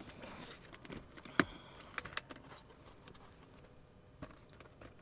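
A few sharp clicks and light rattles of small cable adapters and connectors being picked up and handled, the loudest about a second and a half in.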